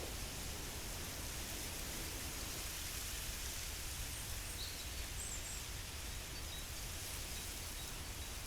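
Steady outdoor ambience: an even hiss with a low rumble beneath it, and a couple of faint high chirps about halfway through.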